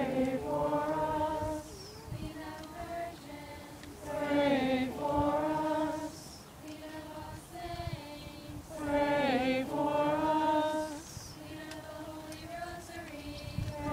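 A group of voices singing a slow hymn, its phrases swelling louder about every four to five seconds with quieter held notes between.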